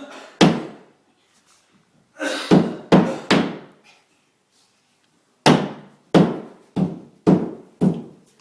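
Hammer blows on a sheetrock wall, about ten hard thunks in two runs with a short pause between them, as the drywall is being knocked through.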